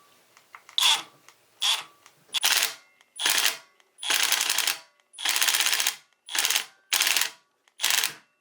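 Ratchet turning a 3/16 Allen bit to drive down the screw of a 4G63 valve spring compressor, compressing a valve spring. It comes as about nine bursts of rapid clicking, one stroke roughly every second.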